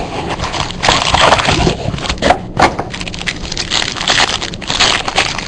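Packaging crinkling and tearing as a sealed trading-card box is opened, an irregular run of crackles and scrapes.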